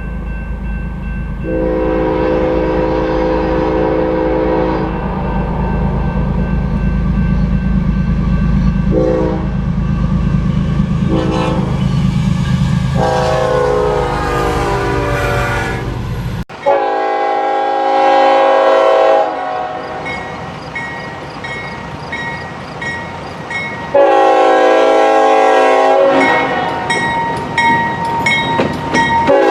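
Locomotive air horn sounding one long blast, two short ones and another long one over the low rumble of a passing train; after an abrupt cut about two-thirds in, a train horn sounds two more long blasts.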